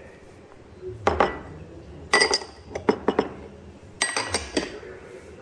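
Small glass prep bowls clinking and knocking against glass as sauce ingredients are tipped into a glass mixing bowl. There are several sharp clinks about a second apart, some with a short glassy ring.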